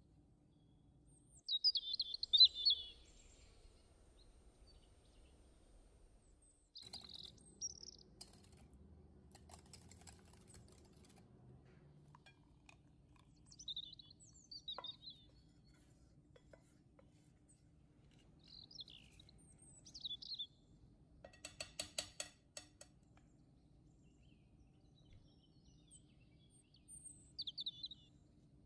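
Small birds chirping in short high phrases every few seconds, the loudest near the start. A quick run of clicks comes about two-thirds of the way through.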